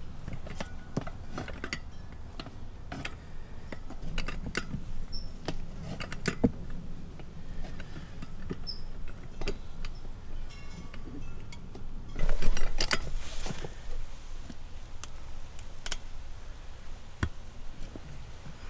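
Tire-mounting tools clicking and scraping against a motorcycle wheel rim as the new tire's bead is worked down over the rim, with a louder stretch of scraping about twelve seconds in.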